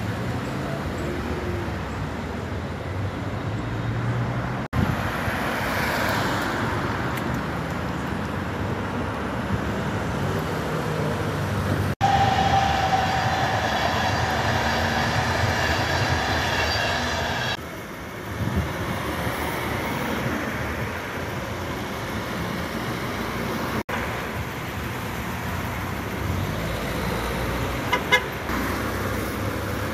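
Road traffic passing, cars and vans going by, with the sound changing abruptly several times. In the middle a long horn sounds for about five seconds. A short, sharp clatter comes near the end.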